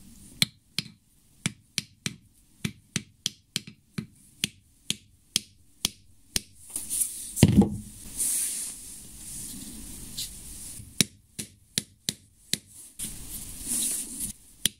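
Repeated sharp knocks of a makeshift wooden ram striking a nail head, ramming an increment of time-fuse composition into a paper tube, about two to three blows a second. Around the middle the blows stop for a few seconds of handling noise with one louder thud, then the knocking resumes.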